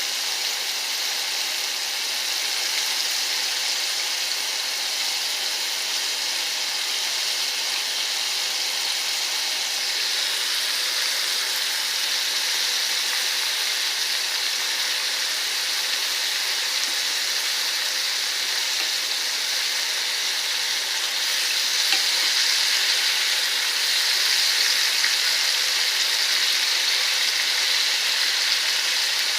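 Flour-coated ribs frying in hot oil, a steady sizzle that swells slightly a little over two-thirds of the way through.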